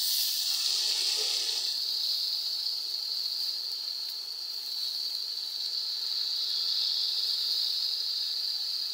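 Water-based spice mixture poured into hot oil with fried onions and tomatoes, setting off a loud, sudden sizzling hiss that keeps going steadily as the stream of liquid continues.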